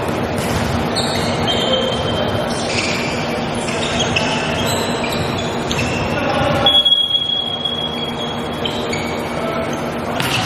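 Rubber-soled shoes squeaking in many short, high squeals on a hardwood gym floor as volleyball players shift about, over a steady hum and the echo of a large hall.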